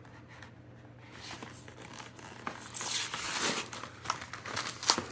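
Plastic and foil packaging of a Pokémon trading card pack being crinkled and torn open by hand, starting after a quiet second and loudest in the middle, with a few sharp crackles near the end.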